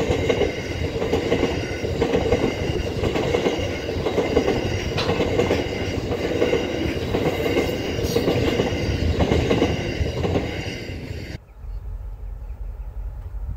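Freight train wagons rolling past, a dense rumble of wheels on rail with a thin high squeal over it. It cuts off abruptly about eleven seconds in, leaving only a quieter low rumble.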